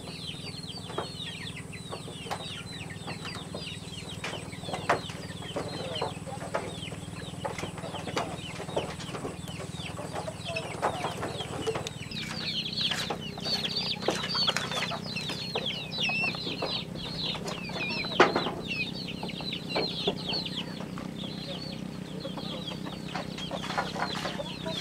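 A dense chorus of many small birds chirping, each call a short high note that falls quickly in pitch, over a steady low hum, with scattered sharp knocks, two of them louder, about 5 and 18 seconds in.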